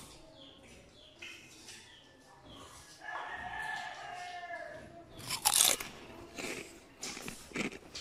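Several people biting into and chewing crisp slices of green mango, with repeated crunches; the sharpest and loudest crunch comes about five and a half seconds in.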